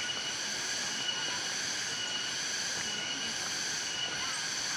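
Forest cicadas droning in a steady, high-pitched chorus.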